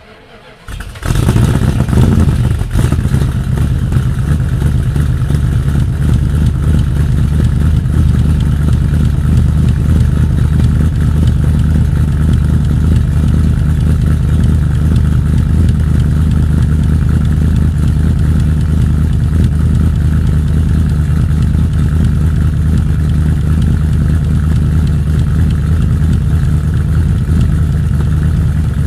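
Dodge 318 LA small-block V8 cold-started after weeks of standing. The engine catches about a second in after a brief crank, flares briefly, then settles into a steady idle heard from the exhaust. It runs with a click that the owner hopes is a collapsed lifter or a header leak.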